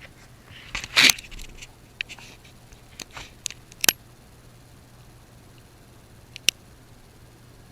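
A handful of short, sharp clicks and knocks of handling noise, the loudest about a second in, over a faint steady low hum.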